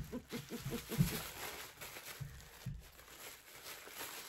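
Paper and a plastic gift bag crinkling and rustling as small items are taken out by hand.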